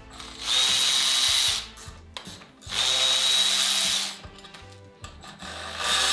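Handheld cordless power tool running in about one-second bursts with a steady high whine, twice and then again near the end, as fasteners are run out during a car teardown.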